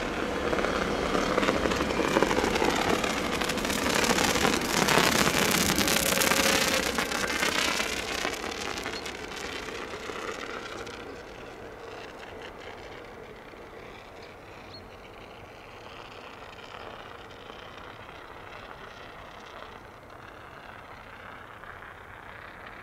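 ÖBB Cityjet electric multiple unit passing by: a loud rush of wheels and running noise with a faint steady hum that peaks about five seconds in. After about ten seconds it fades to a quiet, steady rumble as the train draws away.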